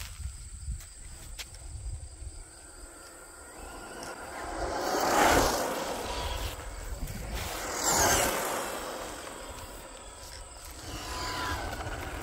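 Electric RC drag truck (Losi 22S '68 Ford no-prep, brushless) whizzing past the microphone twice, about five and eight seconds in, its motor whine and tyre noise on rough asphalt rising to a peak and falling away each time.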